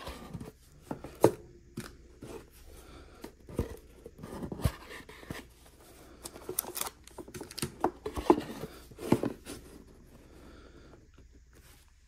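A small rigid cardboard trading-card box being handled, its lid taken off and put back on: irregular taps, knocks and scrapes of the box and lid, thinning out near the end.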